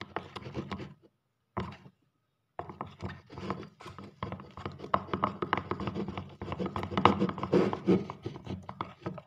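Wooden ice-cream stick stirring thick, clumping slime in a glass bowl: fast, irregular scraping and tapping against the glass, with a pause of about a second and a half about a second in.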